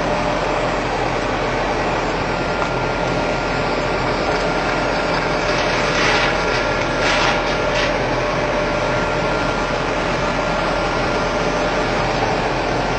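Colloid mill running steadily: an even mechanical hum and rush with a faint steady whine, briefly hissier about six to eight seconds in.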